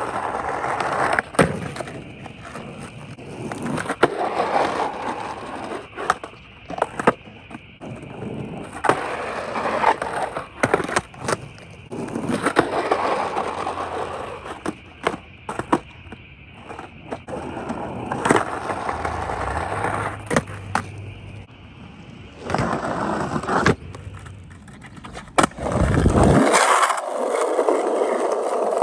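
Skateboard on asphalt and a concrete curb: wheels rolling, with repeated sharp clacks of tail pops, trucks hitting and grinding the curb, and board landings. Near the end the sound turns into a steadier rolling of the wheels over rough asphalt.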